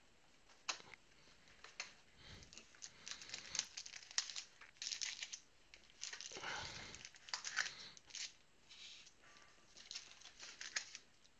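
Foil trading-card pack wrappers crinkling and tearing as packs are ripped open, with irregular crackles and small handling clicks, busiest in the middle.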